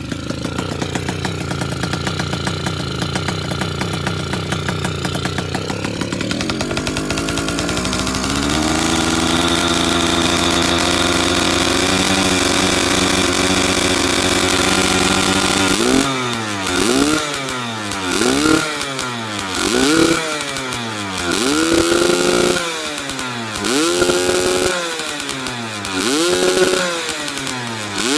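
Yamaha F1ZR two-stroke motorcycle engine, set up for a raspy 'ngorok' (snoring) exhaust note. It idles, climbs to a higher steady speed, then is revved in a string of throttle blips about every second and a half, each rising and falling in pitch.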